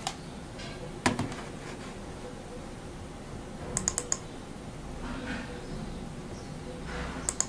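Small sharp clicks from a handheld IR remote control being handled and its buttons pressed: a single click about a second in, a quick run of four near the middle and a few more near the end.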